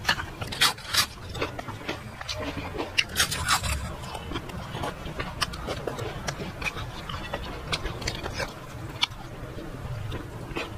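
Close-miked eating sounds as fish curry and rice are eaten by hand: wet chewing and sharp mouth clicks, with fingers squelching in the curry. The clicks are loudest in the first second and around three seconds in.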